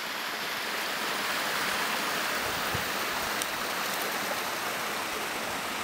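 Small mountain stream running steadily as it flows into a pond: an even wash of water noise.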